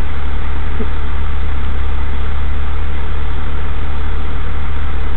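Mitsubishi Lancer Evolution wagon's turbocharged four-cylinder engine idling, a steady low drone heard inside the car.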